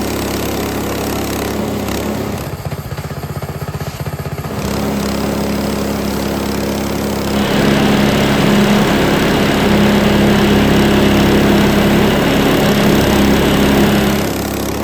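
Frontier OS18 bandsaw mill's gasoline engine running steadily, dipping briefly about two and a half seconds in. From about seven and a half seconds the band blade is cutting through a small white oak branch, adding a loud hiss over the engine.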